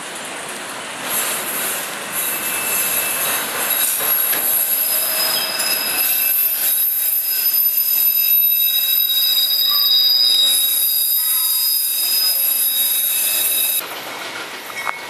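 Freight cars rolling past on steel rails, the wheels squealing in several high, steady tones over the rumble of the train. The sound cuts off abruptly near the end, leaving a quieter background.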